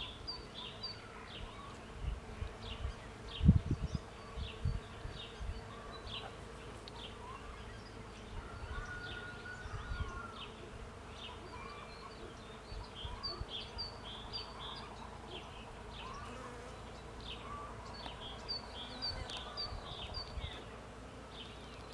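Honeybees buzzing in a steady hum while working cherry blossoms for pollen. High, short chirps of birdsong repeat over it, and a few low thumps come about three and a half seconds in.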